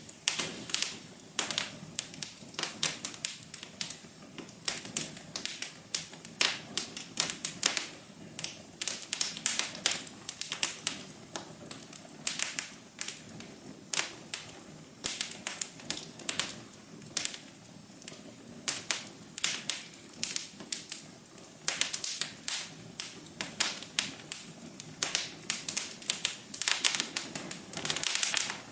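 Fire in a fireplace crackling: irregular sharp pops and snaps, often several a second in clusters, over a steady low hum.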